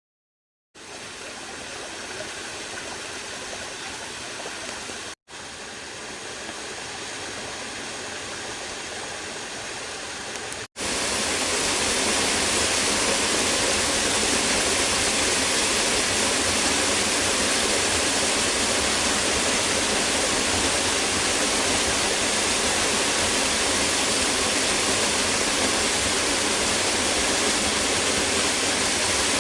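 Waterfall rushing in a steady roar of falling water. It breaks off briefly twice, and after the second break, about eleven seconds in, it comes back much louder and closer.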